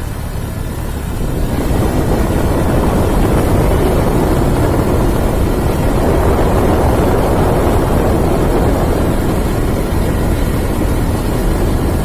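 A motor vehicle running steadily, its engine and road noise growing louder about a second and a half in.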